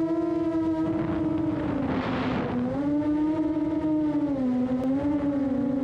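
FPV drone's motors and propellers whining, a steady pitched hum that wavers up and down with the throttle, with a brief rush of noise about two seconds in.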